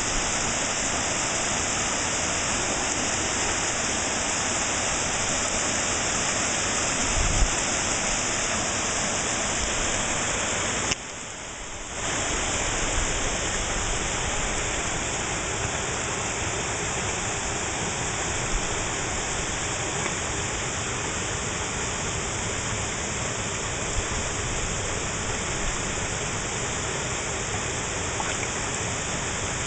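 Small rocky mountain stream running steadily over stones, a continuous rush of water that dips briefly about eleven seconds in. A single low knock sounds about seven seconds in.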